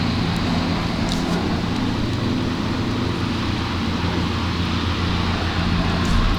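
Engine running steadily at constant speed while the cable puller draws the old water service line through the ground, with a few light clicks.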